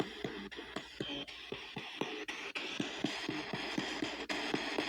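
P-SB7T spirit box sweeping the AM band at a 250 ms rate through an external speaker: a rapid chopping of static and brief radio fragments, about four chops a second.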